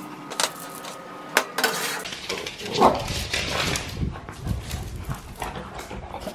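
A utensil clicking and scraping in a frying pan of scrambled tofu and peppers for about two seconds. Then small dogs scuffle over a toy on a rug, with one short bark-like sound from a dog about three seconds in.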